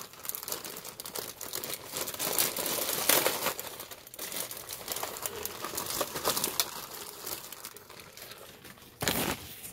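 A plastic bag and packaging crinkling and rustling as they are handled and rummaged through, with small clicks and knocks mixed in. The handling is busiest about two and a half to three and a half seconds in, with a short loud rustle near the end.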